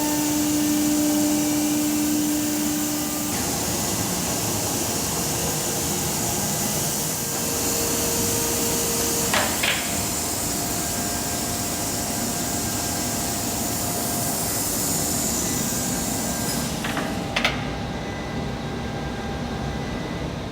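Weeke Vantech 480 CNC router running as it machines a wood panel: steady loud machine noise with a held tone that steps up in pitch a couple of times, and a few sharp clicks around the middle and near the end.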